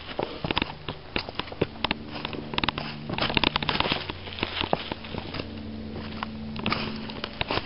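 Footsteps crunching over dry ground and brush, irregular crackling steps that are densest a few seconds in, over a low steady hum.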